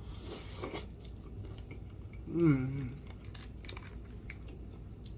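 A person chewing and crunching a mouthful of cheese fries, with small clicking bites and one short hum about halfway through.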